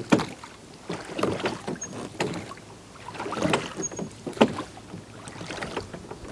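Oars rowing a small boat: a sharp knock and a splash of water with each stroke, about one stroke a second.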